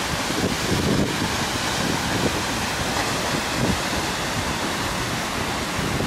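Seljalandsfoss waterfall: the steady rush of water falling from the cliff, with wind buffeting the microphone in uneven low gusts.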